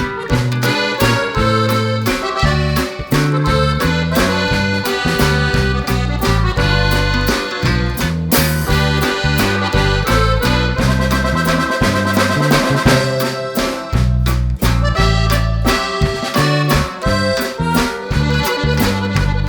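Background music led by an accordion, with a bass line and a regular beat.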